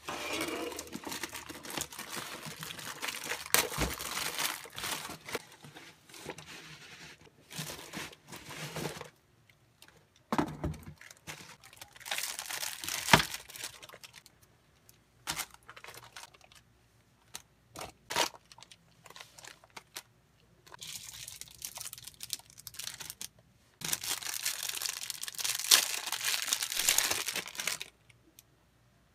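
Unboxing sounds: packing tape and cardboard tearing on a shipping box, and plastic wrapping crinkling as items are handled. They come in several bursts of rustling, with a few sharp knocks and clicks between them.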